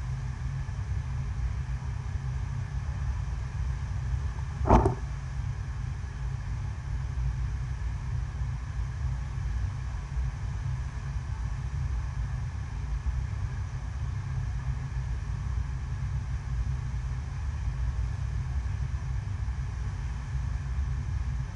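Steady low rumble and hiss of water rushing up an indoor artificial sheet-wave surf machine, driven by its pumps. A single brief sharp knock sounds a little under five seconds in.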